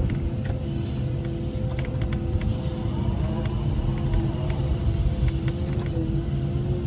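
Cat 312E L excavator heard from its cab while digging: the diesel engine runs steadily under load with a steady hydraulic whine that shifts slightly in pitch a few times, over a low rumble. Scattered clicks and knocks come from the bucket and tiltrotator working the soil.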